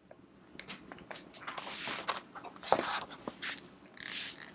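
A page of a children's book being handled and turned: soft paper rustles with light taps and clicks, the longest rustles about one and a half seconds in and again near the end.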